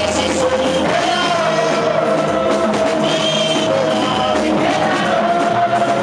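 Live church praise music with a band of drums and guitar and singing, playing steadily with a beat.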